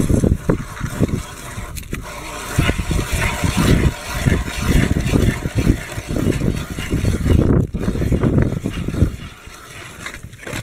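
Hand ice auger turning and cutting a hole through river ice, with wind buffeting the microphone in uneven gusts; it eases off shortly before the end.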